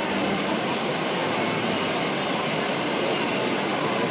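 Steady murmur of a large outdoor spectator crowd chattering, an even hiss-like noise at a constant level with faint voices in it.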